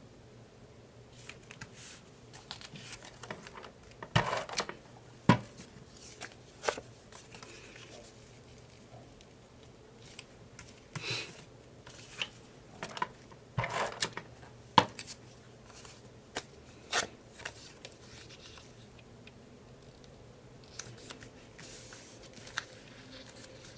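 Paper being handled and worked at a craft table: scattered short rustles and snips, with a few sharp taps and quiet gaps in between.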